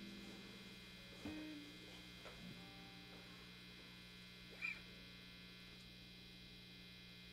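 Faint, steady mains hum and buzz from an electric guitar rig sitting idle: a Stratocaster-style guitar plugged into a distorted amplifier, with a few faint touches on the guitar.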